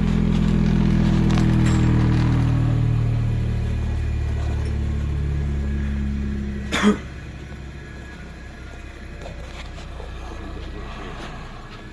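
Electric motor of a workshop power tool winding down after being switched off, its hum sinking steadily in pitch over about six seconds. A sharp click about seven seconds in, then a quieter low hum remains.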